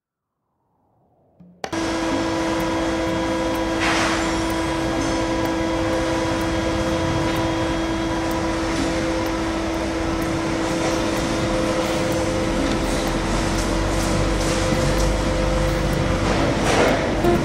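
Sheet-metal shop machinery running with a steady motor hum and a fixed whine. It starts suddenly about a second and a half in. There are two brief hissing swells, about four seconds in and near the end, and a few light clicks.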